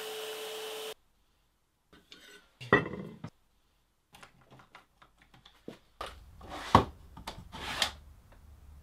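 Belt sander grinding the edge of a thin metal plate, cut off abruptly about a second in. Then scattered clicks and a sharp metallic clank with a short ring as the metal piece is set down on the workbench. Near the end come knocks and clatter from wooden drawers and boxes being handled.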